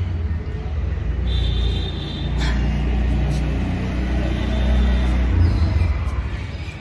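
Low, steady rumble of nearby road traffic, with a brief high tone about a second in and a few faint clicks.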